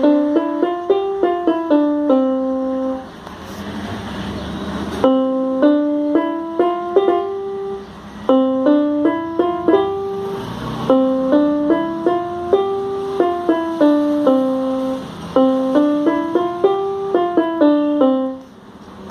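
Electronic keyboard played by hand: a simple melody of sustained single notes, the same short phrase played over several times with brief breaks between the phrases.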